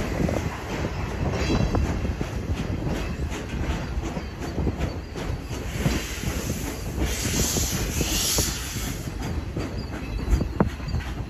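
Rail car riding along the track in a train pulled by a steam locomotive: steel wheels rumbling and knocking over the rail, with a high wheel squeal rising for a couple of seconds about seven seconds in.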